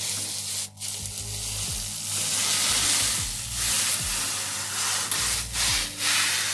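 Fans of a just-started desktop PC (Gelid Phantom CPU cooler and case fans) spinning at full speed: an even rushing of air that starts suddenly and dips briefly a few times.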